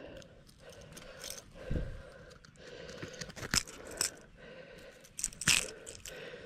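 Fishing pliers clicking and scraping against a small topwater lure's treble hooks while unhooking a largemouth bass: a handful of scattered sharp metal clicks, the loudest near the end.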